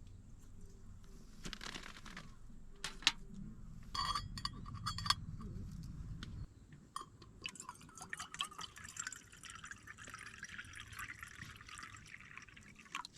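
Water being poured into a camp pot or cup, preceded by a few light clinks of cookware.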